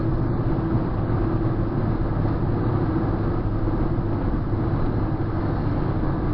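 Steady road noise inside a car cruising at highway speed: engine and tyre noise with a constant low drone.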